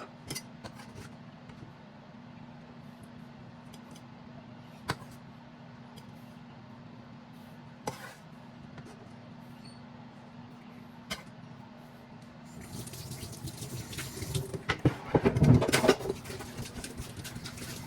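Kitchen tap running into a sink for the last few seconds, louder and rushing. Before it there is a steady low hum with a few sharp clicks of kitchen utensils.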